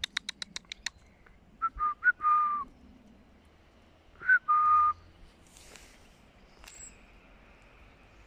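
A person calling a dog: a quick run of about seven clicking sounds, then a few short whistled notes and a longer held one, and a couple of seconds later a whistled higher note dropping to a longer lower note.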